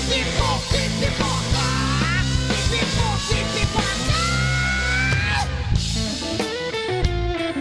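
Live rock band music: electric guitar over bass and drums, with a long note that slowly rises in pitch in the middle. Around six seconds in the bass drops away and the electric guitar carries on more sparsely.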